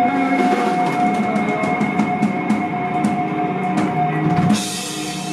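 Live band playing, with drum kit strokes under a steady held high note, then a cymbal crash about four and a half seconds in that rings on as the playing quietens.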